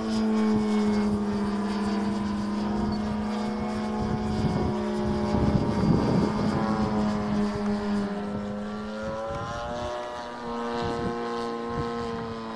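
Thunder Tiger September Fury radio-controlled model airplane in flight, its motor and propeller giving a steady buzzing tone. The pitch drops for a moment about two-thirds of the way through, then climbs back up as the plane turns.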